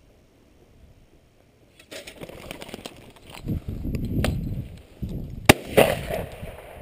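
Footsteps swishing through tall grass, starting about two seconds in after a quiet spell, with a few sharp clicks and one loud snap about five and a half seconds in.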